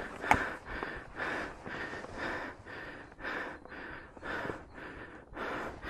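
A hiker panting hard from a steep uphill climb, quick breaths about two a second. A single sharp click sounds about a third of a second in.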